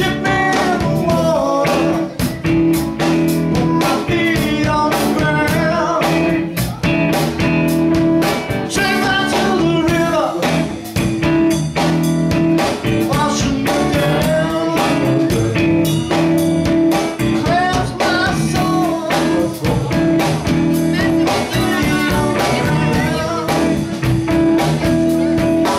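Live band playing electric guitars, bass guitar and a drum kit, with steady drum hits under held chords and a wavering melody line.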